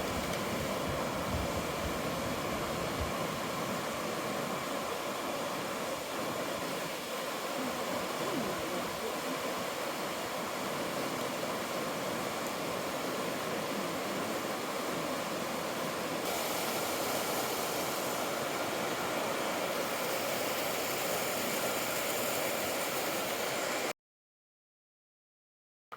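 Steady rushing water of a river running through a rocky gorge, an even hiss-like roar with no rhythm, turning brighter and hissier about sixteen seconds in, then cutting off abruptly to silence near the end.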